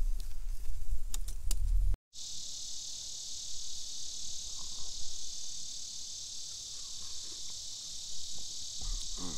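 Steady high-pitched insect chorus, an even chirring that sets in abruptly about two seconds in. Before it comes a low rumble on the microphone with a few sharp clicks.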